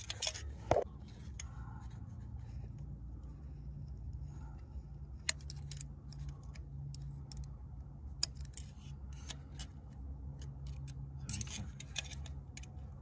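Metal seal pick scraping and clicking against the inside of an oily spark plug tube while prying at a broken ignition coil boot stuck on the spark plug: scattered small clicks, in bunches, over a low steady hum.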